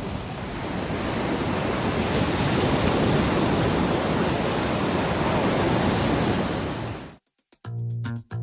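Steady rushing of sea surf, swelling slightly, then cut off abruptly about seven seconds in. Plucked guitar music starts just before the end.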